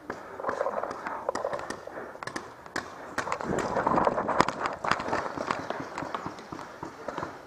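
Running footsteps and rattling paintball gear, louder for a couple of seconds in the middle as the player sprints to cover, with scattered sharp pops of paintball markers firing.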